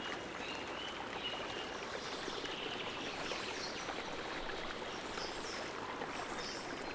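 Steady sound of running water like a stream, with faint bird chirps over it.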